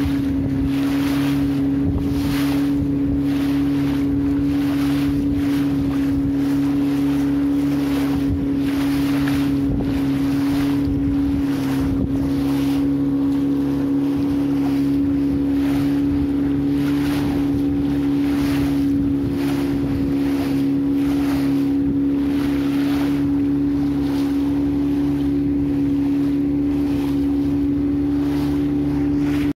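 Engine running at a steady speed, a constant drone, with wind and rushing noise on the microphone swelling about once a second.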